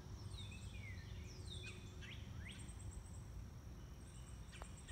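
A bird calling a few times, each call a quick whistle sweeping downward, over a steady high insect drone and a low outdoor rumble. A faint click comes near the end.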